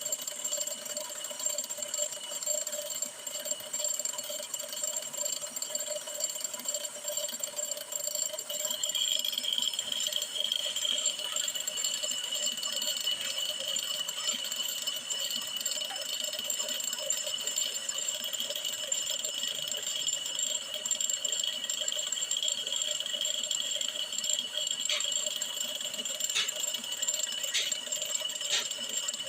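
Brake lathe turning a cast-iron brake drum while the cutting tool skims its braking surface, giving a steady high metallic ringing that grows brighter about nine seconds in. A few sharp clicks near the end.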